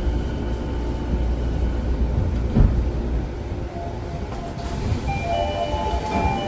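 Rinkai Line 70-000 series train running, heard from inside the car: a steady low rumble of wheels and running gear, with a faint high motor whine dying away. Near the end a few short musical notes come in over it.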